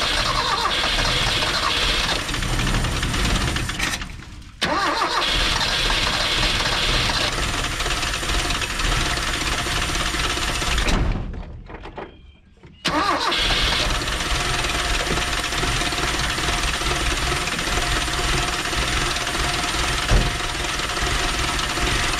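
The four-cylinder carbureted engine of a 1979 Dodge D50 pickup, long stored, being cranked over to start in three long goes. It stops briefly about four seconds in and again around eleven seconds in, then starts again abruptly each time.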